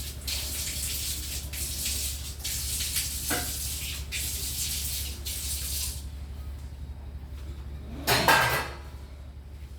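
Kitchen cooking noise of pots, pans and utensils: a high hissing with small scrapes for about the first six seconds, then one loud clatter about eight seconds in.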